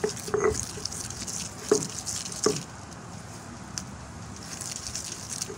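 Stone roller (batta) worked over raw beef mince on a flat grinding stone (sil): wet scraping and squishing strokes, with a couple of sharper knocks about a second and a half and two and a half seconds in, grinding the meat into a fine paste.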